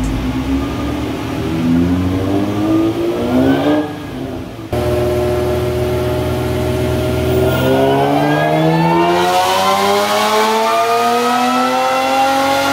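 Supercharged Infiniti G35's 3.5-litre V6 revving under load on a chassis dyno. Its pitch climbs for about four seconds, drops off briefly, then holds and rises slowly and steadily through a long pull.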